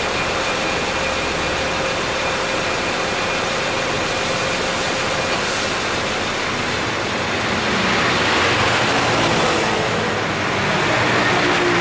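2011 Subaru Forester idling with its air conditioning running: a steady rush of fan air over the engine. The A/C compressor runs with no abnormal noise after repair. A faint steady whine drops out about halfway through, and the rushing grows louder twice in the second half.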